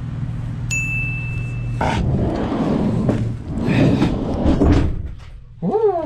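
A single high electronic beep, held for about a second, over a steady low hum. About two seconds in it gives way to a few seconds of louder, jumbled noise.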